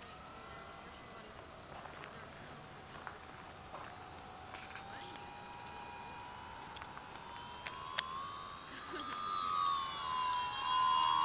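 Electric motor and propeller of a DW Foamies Juka 40-inch foam RC aerobatic plane whining. It is faint at first, then rises in pitch and grows much louder over the last few seconds as the plane comes in close and low.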